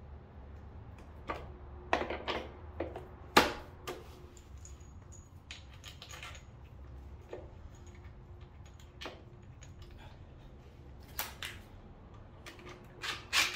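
Scattered metallic clicks and clinks as bolts and a driver bit are fitted by hand into the metal crankshaft pulley, with one louder knock about three and a half seconds in and a few more near the end.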